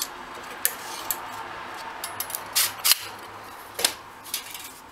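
Metal clinks and rattles from a galvanised wire-mesh Ugglan small mammal trap being handled, its hinged end and mesh body knocking as it is closed and lifted: several separate sharp clinks, the loudest about three seconds in.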